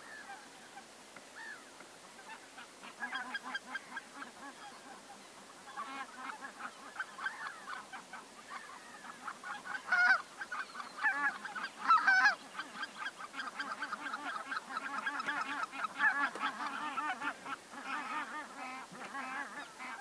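A flock of geese honking, many short calls overlapping, growing denser about three seconds in, with a couple of louder honks near the middle.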